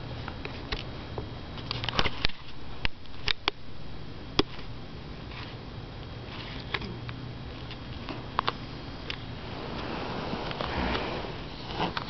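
A sleeping dog making short, sharp clicks and snuffles, several in quick succession about two to four seconds in and more scattered after. Near the end there is a rustle as the dog stirs on the couch.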